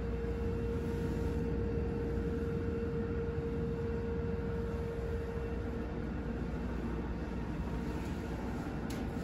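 Berlin U-Bahn train standing at a station, heard from inside the car: a steady low rumble of the train's running equipment, with a steady hum that fades out about six seconds in.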